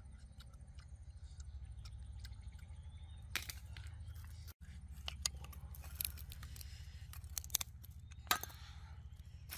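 Scattered clicks, taps and scrapes of things being handled over a steady low hum, cutting out for an instant about halfway through.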